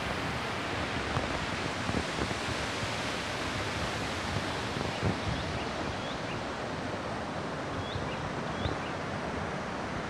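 Steady rush of a waterfall: an even, unbroken noise of falling water. From about halfway through, faint short high chirps repeat about twice a second.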